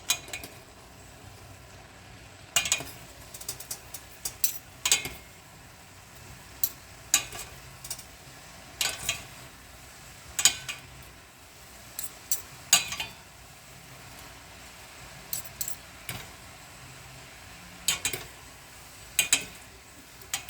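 Metal utensil clinking and scraping against a cooking pan at irregular intervals, about one to two seconds apart, some strikes in quick pairs, as pancit noodles are stirred or tossed.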